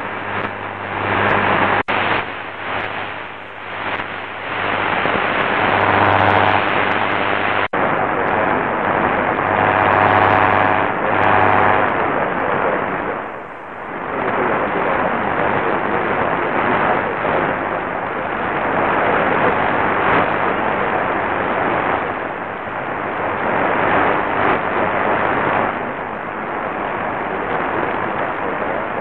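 Qodosen SR-286 portable radio's speaker playing weak, distant medium-wave AM stations buried in static, which fade in and out. The audio drops out briefly twice in the first eight seconds as the radio is tuned from one channel to the next.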